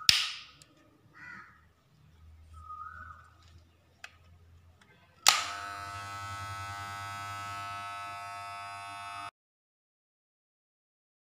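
A sharp click and a few light handling knocks, then a corded Andis hair clipper is switched on with a click about five seconds in. It runs with a steady buzz for about four seconds and stops abruptly.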